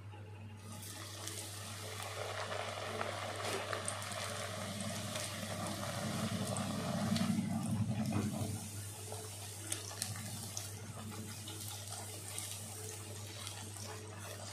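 A multigrain puri deep-frying in hot oil in a kadai: a sizzle with small crackles that starts about a second in as the dough goes into the oil, is loudest around the middle, then eases a little.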